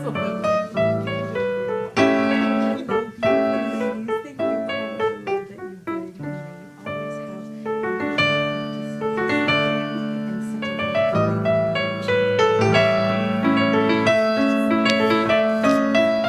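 Solo piano music: chords and melody notes played at an even, moderate pace.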